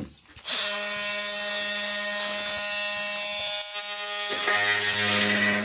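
Cordless oscillating multi-tool running as it cuts through wooden strapping on a wall frame. It is a steady buzz that starts about half a second in, breaks off briefly about four seconds in, then runs again with a deeper tone.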